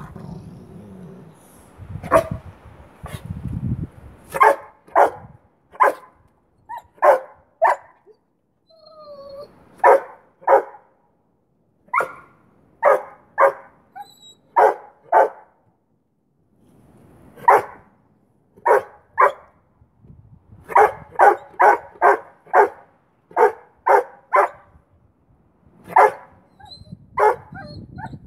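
Boweiler puppy play-barking, dozens of short sharp barks in bursts with pauses between, some runs coming about two a second, with a short whine about nine seconds in. The barks are aimed at a rottweiler holding a stick under his paw: demand barking to get the stick in play.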